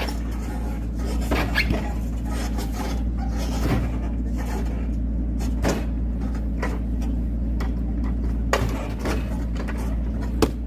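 Knotty oak firewood being split: sharp cracks and knocks every second or two over a steady low machine hum.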